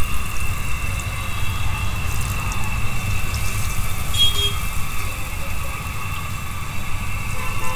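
Battered fritters sizzling as they deep-fry in a wide iron kadai of hot oil, over a steady low rumble.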